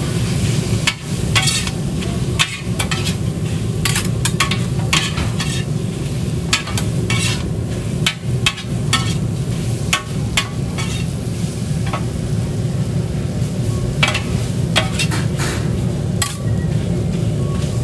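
Spicy pork gopchang and vegetables sizzling on a hot flat steel griddle, with a long metal spatula scraping and clanking against the plate many times at an irregular pace as the food is tossed.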